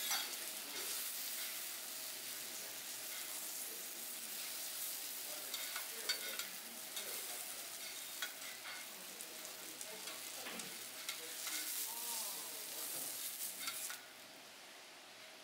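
Food sizzling on a teppanyaki iron griddle, with scattered sharp clicks and scrapes of metal spatulas on the plate. The sizzling cuts off suddenly near the end.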